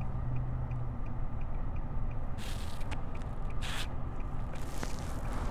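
Steady low road and engine rumble inside a Nissan sedan's cabin at highway speed, with a few short hisses partway through.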